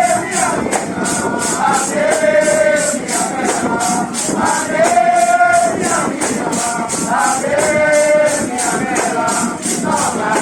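Live procession music: a repeated melodic phrase, starting again every two to three seconds, over a steady jingling percussion beat of about three strokes a second.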